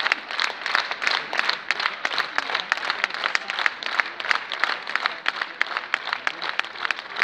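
Spectators applauding: many hands clapping in a dense, uneven stream of sharp claps.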